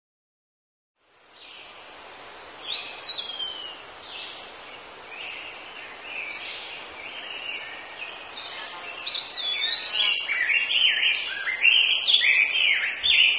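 Birds chirping and singing, several overlapping calls of short whistled sweeps over a steady outdoor hiss, starting about a second in and growing busier and louder from about nine seconds in.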